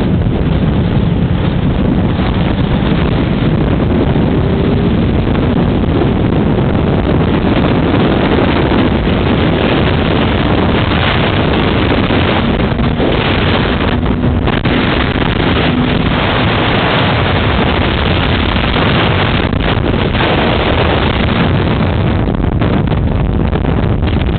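Loud, steady wind rushing over the microphone, with a faint low engine drone under it, as from a moving motorcycle.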